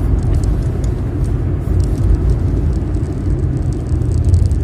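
A car on the move, heard from inside its cabin: a steady low rumble of engine and road noise.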